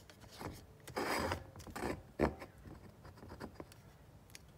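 Handling noise: short rubbing, scraping sounds about a second in and again near two seconds, with a sharp click a little after two seconds and a few faint ticks.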